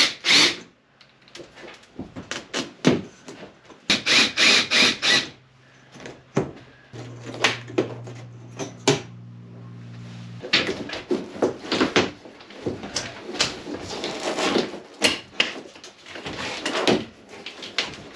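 A cordless drill runs in a few short bursts on the headliner fasteners, then a steady low motor hum holds for several seconds. From about ten seconds in comes continuous scraping, rubbing and crinkling as the old motorhome headliner panel is pried and pulled down from the roof.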